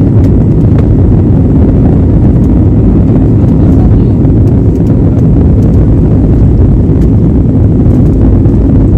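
Inside the cabin of an Airbus A320-family jet airliner rolling along the runway: a loud, steady, deep rumble of the engines and wheels.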